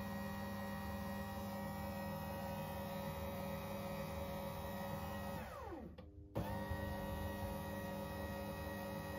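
Morphy Richards bread maker's kneading motor running with a steady mechanical hum. About six seconds in, the motor winds down in pitch and stops briefly, then runs again.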